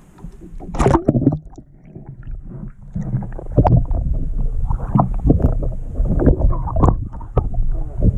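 Irregular knocks, clunks and splashing around a fishing kayak, over a low wind rumble on the microphone; one sharp knock about a second in, then busier knocking and splashing from about halfway through.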